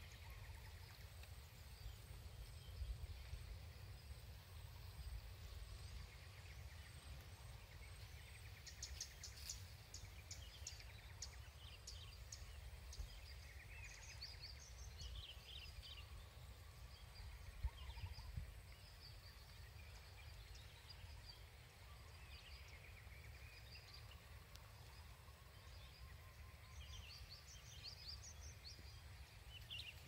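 Wind rumbling on the camera microphone, with scattered bird calls and chirps over it, including a quick run of short, high notes about nine seconds in.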